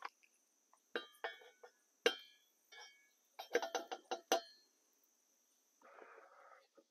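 Wooden coffee scoop tapping and clinking against a stainless steel French press carafe while grounds are spooned in: about ten light, ringing clinks over three seconds, then a brief soft rustle about six seconds in.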